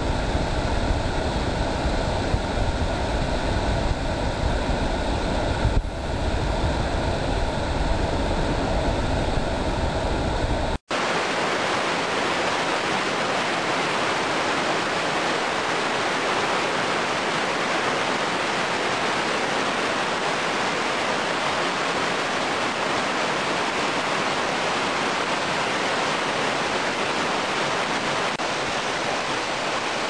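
Water falling and rushing over rocks in a mountain cascade, a loud, steady rush. About eleven seconds in it changes abruptly to an even, hissier rush with much less low rumble.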